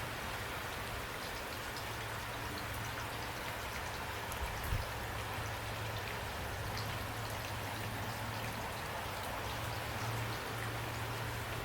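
Steady rain falling, with individual drops ticking on a surface and a low rumble underneath. One dull thump comes just under halfway through.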